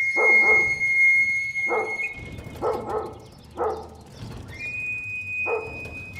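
A dog barking, about six single barks a second or so apart, with a long, steady, shrill whistle held behind the first barks and again near the end.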